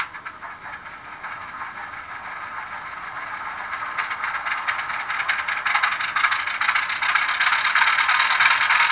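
Sound-decoder recording of an ALCO 251 turbocharged diesel prime mover starting up, played through a model locomotive's small speaker: a rapid rattling engine beat that grows steadily louder as the engine catches and comes up to speed. The small speaker leaves it thin, with little bass.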